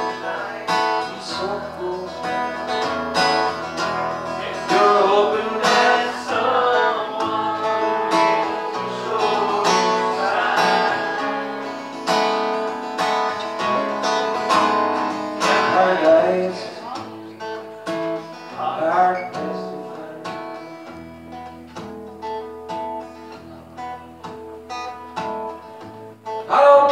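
Live acoustic guitar strummed and picked under a man's singing voice, part of a slow song. After about two-thirds of the way the playing grows quieter and sparser before building again at the very end.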